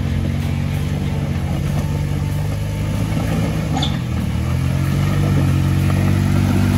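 Jeep Wrangler engine running under load as it crawls up a steep rocky hill with ledges. The revs dip briefly about four seconds in, then climb again and grow louder.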